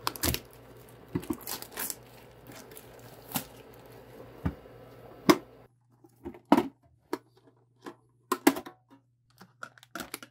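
Plastic shrink wrap being torn and crinkled off a metal trading-card tin, then scattered sharp clicks and taps, starting a little after halfway, as the tin is opened and its clear plastic insert handled.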